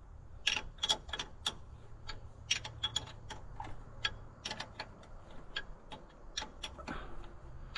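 A steel hand wrench clicking and clinking on bolt heads, short sharp ticks a few a second and unevenly spaced, as the bolts on a tractor's belt pulley housing are tightened by hand.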